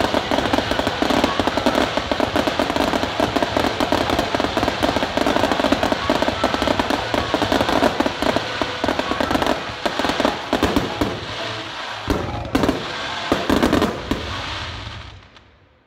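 Fireworks finale barrage: many aerial shells and crackling mines going off together in a dense, rapid crackling and popping. Near the end come a few heavier separate bangs, and then the sound fades away.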